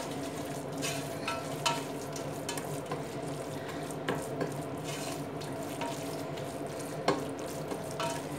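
Spatula stirring and scraping onions and spice masala frying in a stainless steel pressure cooker, with a steady sizzle and a few sharp scrapes and knocks against the pot, the loudest about seven seconds in.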